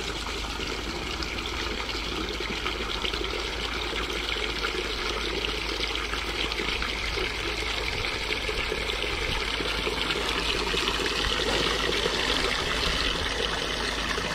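Water running steadily into a 5-gallon chicken waterer as it is filled, getting a little louder toward the end.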